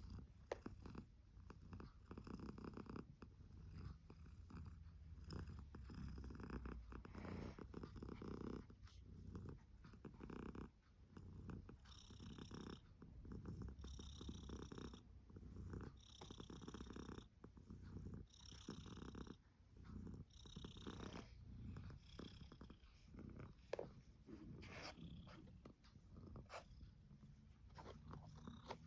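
Domestic cat purring steadily, a low fast rumble. Through the middle stretch a soft high breathy sound comes with each breath, about every two seconds.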